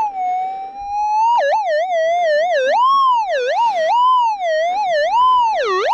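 Minelab GPZ 7000 metal detector's target tone, steady at first, then wavering up and down in pitch about two times a second from about a second and a half in as the detector passes over a buried target. The detectorist takes the signal for probably gold.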